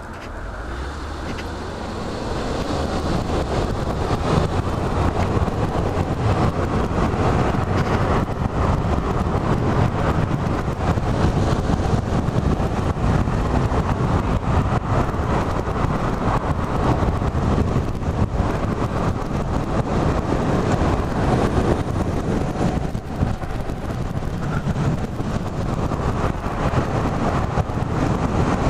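Rushing wind and road noise from an e-bike ridden flat out, building over the first few seconds as it accelerates and then holding steady at speed.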